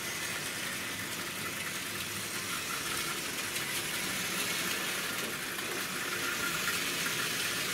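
Hornby Dublo Co-Co diesel model locomotive running on three-rail track with a rake of wagons: steady whirr of its ring-field motor and clatter of wheels on the rails, growing a little louder near the end.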